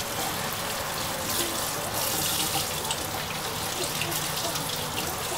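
Kitchen tap running steadily, its stream splashing onto tomatoes being rinsed in a wire colander in a stainless steel sink.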